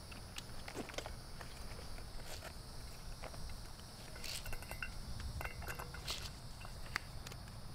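Insects, likely crickets, chirping steadily in an evening outdoor setting, with scattered faint clicks and rustles.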